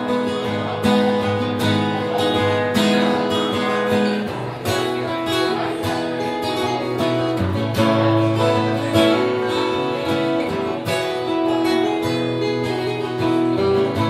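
Two acoustic guitars, strummed and picked, playing an instrumental passage of a country-folk ballad with no singing.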